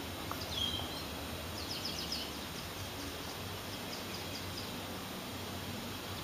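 Faint small-bird chirps over a steady low hum and hiss: a short call about half a second in, then a quick run of chirps around two seconds in.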